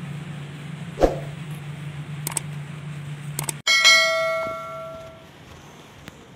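A steady low hum cuts off abruptly, and a bright bell ding rings out and fades over about a second and a half: the notification-bell sound effect of a 'subscribe' button animation. A dull thump comes about a second in and a couple of faint clicks come just before the ding.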